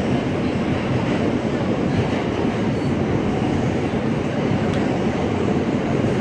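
Steady running noise inside an Alstom-equipped R160A subway car travelling at speed through a tunnel: a constant rumble of wheels on rail with no pauses.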